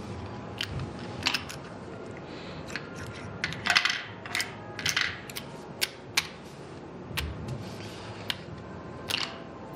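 Casino chips clicking and playing cards being swept across the felt of a blackjack table: a scattered series of sharp clicks and short swishes.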